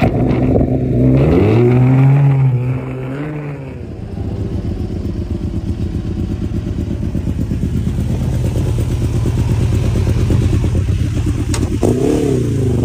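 Racing superbike engine revved, its pitch climbing, holding for a moment and dropping back, then idling with a steady fast pulse; near the end it is revved briefly again.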